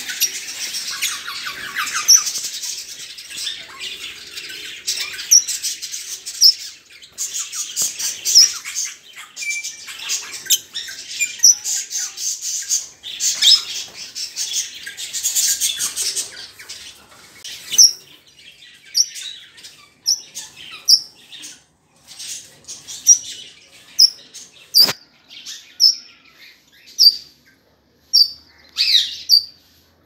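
Small caged parrots chattering and squawking almost without pause for the first half, then giving separate sharp chirps about once a second. A single knock about two-thirds of the way through.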